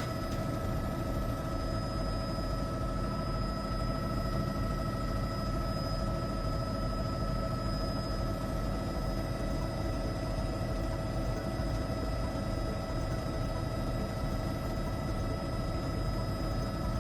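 Steady news-helicopter cabin noise heard through the crew's headset intercom: a low engine and rotor rumble with a constant turbine whine.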